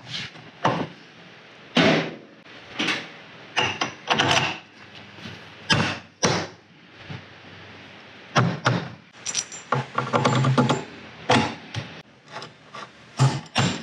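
Irregular metal clanks and knocks as a steel plate shock bracket is handled and fitted against the rear shock mount and axle bracket, a few of them ringing briefly.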